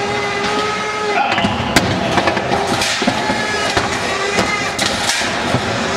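Spectators shouting and calling out over a combat-robot fight, with a few sharp metal knocks as the robots hit each other.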